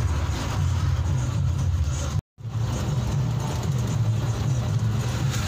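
Ashok Leyland diesel bus engine running steadily under way, heard from inside the bus with road noise. The sound cuts out for a moment about two seconds in.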